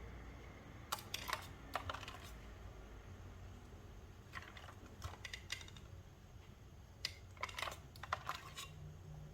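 Light, sharp clicks and taps in three short clusters, a few seconds apart.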